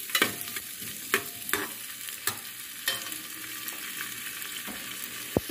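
Sliced smoked calabresa sausage sizzling in hot oil in a pressure-cooker pot, with a metal spoon scraping and clinking against the pot as it is stirred. There are a few sharp clinks in the first three seconds and a single dull knock just before the end.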